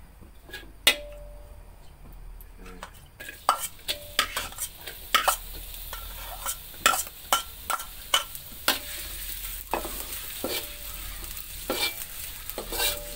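Sliced shallots, garlic and chillies go into hot oil in a wok and start sizzling about three seconds in. A spatula then stirs and scrapes them, knocking sharply against the wok again and again. One knock sounds alone about a second in, before the sizzling starts.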